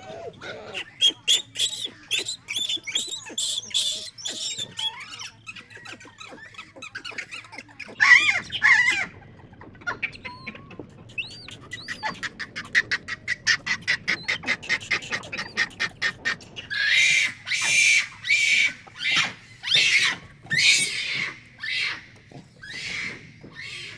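Japanese macaques calling: scattered short chirps and squeaks, a fast run of short repeated calls midway, then louder shrill screams in the last third.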